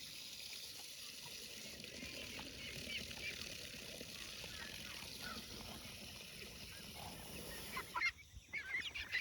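Water running steadily, with farm fowl calling faintly over it. About eight seconds in the water stops and short, louder bird calls follow.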